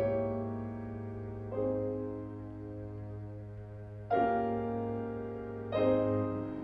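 Cello and grand piano playing slow classical music: the cello holds a low bowed note while the piano strikes four chords, each ringing and fading away.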